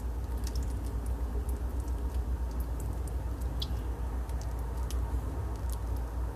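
Faint, scattered sticky clicks and squelches of hands pressing macaroni and cheese into a raw chicken wing, over a steady low hum.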